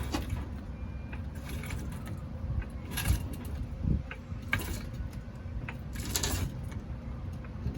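Floor jack being pumped: short metal clanks and clicks come about every second and a half over a low outdoor rumble.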